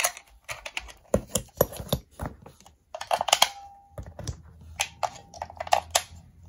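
Irregular plastic clicks, taps and rattles as a toy morpher's battery cover is unscrewed and lifted off and AAA batteries are pushed into their spring contacts.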